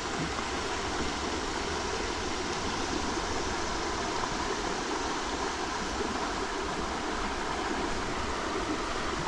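Steady rush of flowing stream water, an even unbroken noise with no distinct events.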